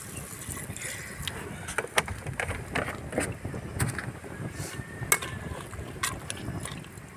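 A ladle stirring a watery pork curry in a clay pot, the liquid sloshing, with irregular sharp knocks as the ladle hits the pot wall. Water poured into the pot just before the stirring begins.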